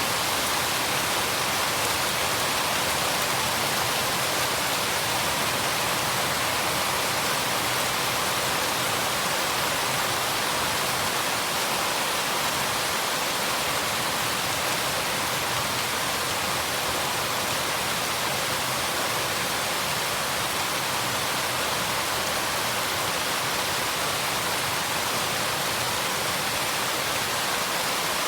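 Steady rain falling: an even, unbroken hiss with no single drops or pauses standing out.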